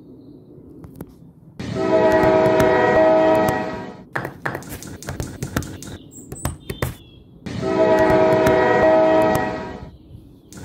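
Train horn sounding twice, each blast about two seconds long, a steady chord of several tones over a low rumble. Sharp clicks and taps are scattered between the blasts.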